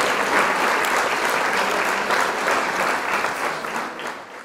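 Applause from many hands clapping, fading out near the end.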